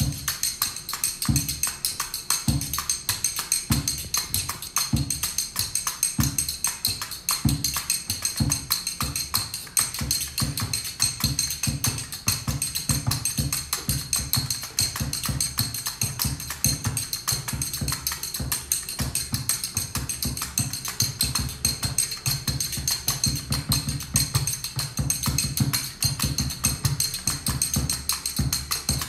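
Samba rhythm played on a homemade frame drum with a clear packing-tape head, giving low thumping strokes, layered with fast, steady clicking and scraping from kitchen utensils and a small box played by hand.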